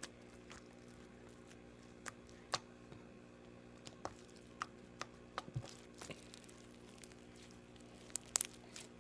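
Slime squeezed and worked by hand, making scattered small pops and squelches, a second or so apart at first and several in quick succession near the end.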